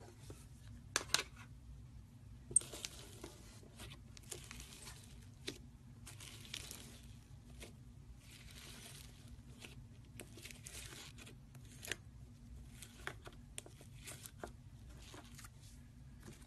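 Foam-bead slime (floam) squished and pressed by fingers in a plastic tub: irregular crunchy crackling of the beads in bursts, with a few sharper clicks, the loudest about one and two and a half seconds in.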